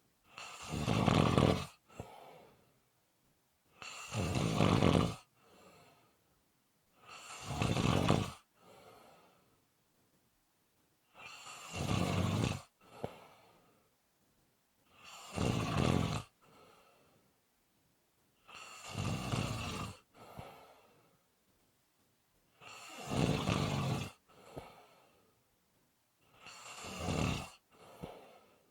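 Steady, rhythmic snoring: eight loud snores, about one every three and a half seconds, each swelling and then cutting off sharply, with a fainter breath out after each one.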